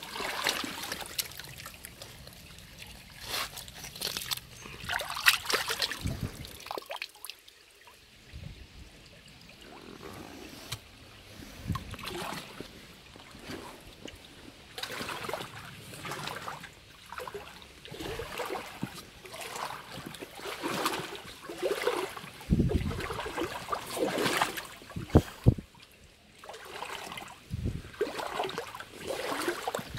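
Footsteps wading through shallow river water: irregular sloshes and splashes about every second or so, over the trickle of the water.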